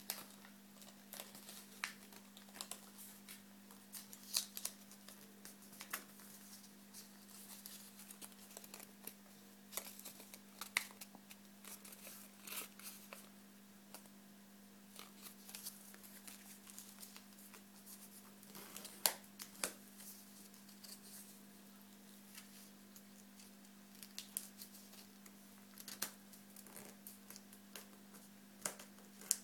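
Origami paper being folded and creased by hand: scattered crisp crackles and rustles at irregular moments, over a steady low hum.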